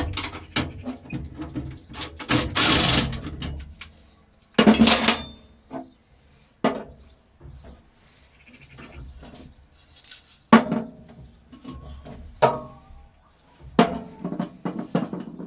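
Irregular metallic knocks and clatter from hand tools and metal parts being handled during repair work, with two short bursts of a noisy tool in the first three seconds.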